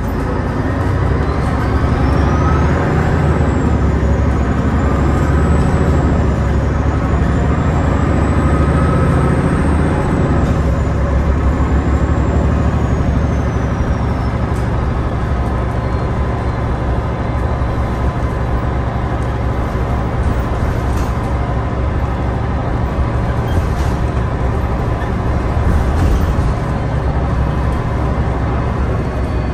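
Inside a MAN A22 (NL323F) low-floor bus accelerating hard under kickdown through its Voith DIWA 864.5 automatic gearbox: the rear-mounted diesel engine pulls loud and low. A high whine climbs over the first few seconds, wavers, and fades away by about halfway, as the engine note settles somewhat into a steady drive.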